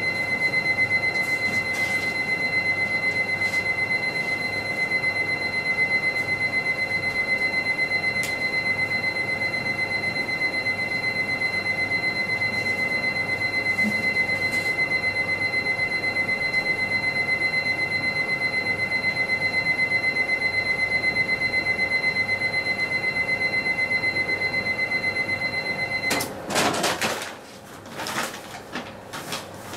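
A steady high-pitched electronic tone with a fast flutter, like an alarm ringing, that cuts off suddenly near the end. After it, paper or cardboard rustles and crinkles.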